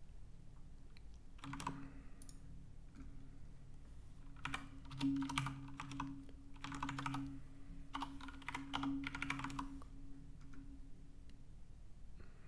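Typing on a computer keyboard: a short burst of keystrokes about a second and a half in, then a longer run of quick keystrokes from about four and a half to ten seconds in, over a faint steady low hum.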